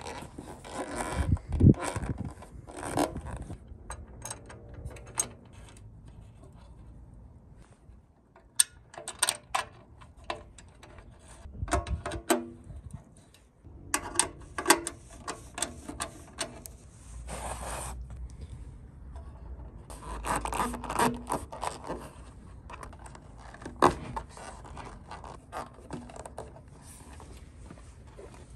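Handling noises as a rubber knee pad is pressed and rubbed onto a JAWA motorcycle's painted steel fuel tank and its fastener is worked with a socket tool: irregular scrapes and rubs with scattered sharp clicks.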